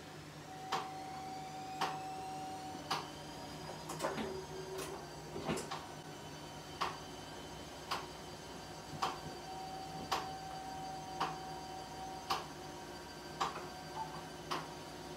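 Electric rotary ironer running as a sheet is fed over its roller: a steady hum with a sharp click about once a second.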